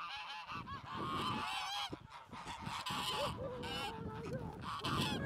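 A flock of domestic geese honking and gabbling, many calls overlapping, with no break.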